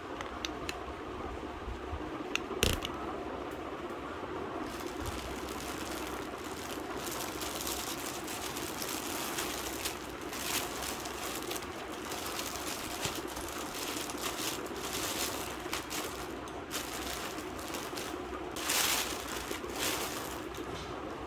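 Plastic mailer and clear poly wrapping crinkling and rustling in irregular bursts as hands open it and slide a backpack out, with a sharp click about two and a half seconds in and a louder stretch of rustling near the end. A steady background hum runs beneath.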